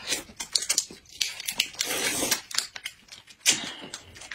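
Close-up eating sounds: noodles slurped from a bowl, mixed with a small plastic snack wrapper being torn open and crinkled. The noise swells into a hissy slurp about two seconds in, among short crackles.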